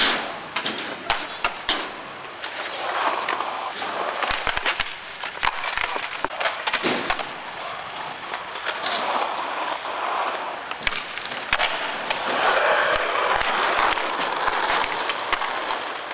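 Skateboard wheels rolling on concrete, with many sharp clacks of the board popping and landing along the way.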